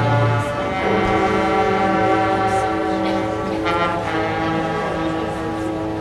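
High school marching band's brass and winds sustaining long held chords, the chords shifting a few times, with a brief rising figure about four seconds in.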